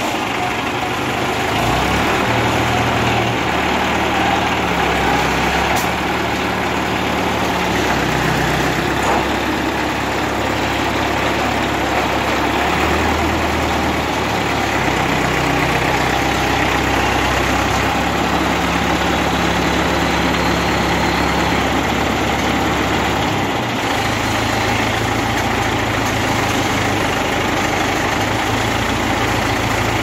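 Heavy vehicle engine running steadily, its low hum shifting in pitch now and then.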